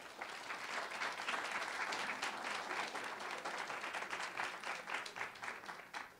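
Audience applauding, many hands clapping together, thinning out and fading near the end.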